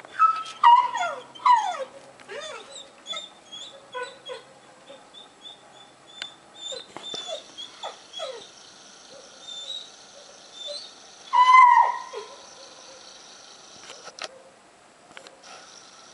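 Airedale Terrier screaming like a pig: loud, high cries falling in pitch in the first two seconds and again about eleven seconds in, with short yelps and whines between. It is the frustrated cry of a dog left behind when its companions go off for a walk without it.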